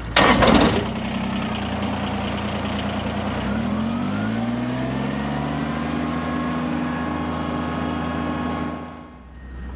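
Kubota BX23S compact tractor's three-cylinder diesel engine starting with a short burst at the start, then running. Its pitch rises as the throttle is run up between about three and six seconds in, then holds steady. The hydraulic pump is meanwhile dead-headed against a pressure gauge, under load. The engine sound drops away near the end.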